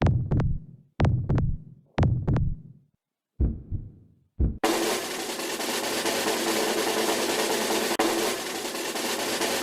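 Heartbeat-like sound effect in a music track: paired thumps about once a second, which stop after about four and a half seconds. A steady, dense rushing sound then cuts in abruptly.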